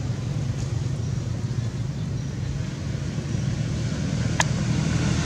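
Steady low rumble, edging louder over the last couple of seconds, with one sharp click about four seconds in.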